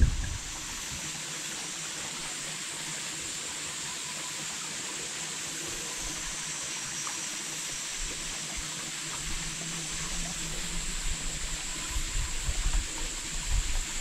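Steady rush of flowing mountain-stream water. Low gusts of wind on the microphone come in during the last few seconds.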